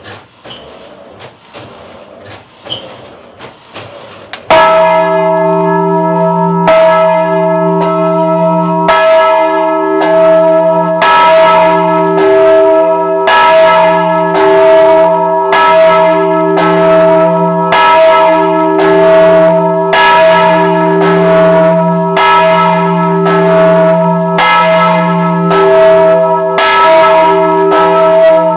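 A single swinging church bell, cast in 1926, being rung. Quiet knocks and clacks come first; then, about four and a half seconds in, the clapper starts striking. It strikes about once a second, alternating stronger and weaker strokes, and each strike rings on in a long low hum under brighter overtones.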